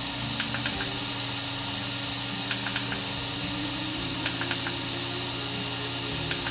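Steady low hum over a hiss, with small clusters of two or three light clicks about every two seconds.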